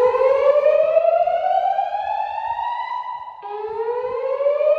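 Gentex fire alarm speaker on a Notifier DVC voice evacuation system sounding the whoop alert tone: a loud rising sweep that climbs for about three seconds, breaks off about three and a half seconds in, and starts again from low.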